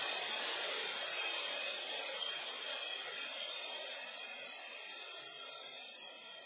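A long hissing noise wash, like a noise sweep or cymbal decay in an electronic music track, that slowly fades out after the last beats.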